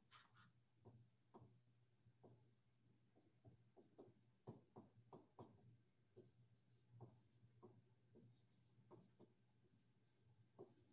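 Faint dry-erase marker writing on a whiteboard: short, irregular scratchy strokes and taps.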